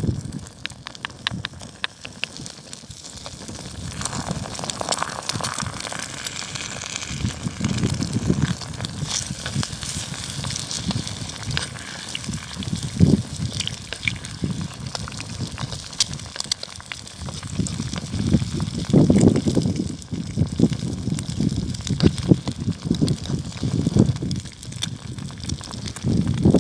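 Eggs sizzling in a pan over an open wood fire, with the fire crackling and a utensil scraping and stirring in the pan.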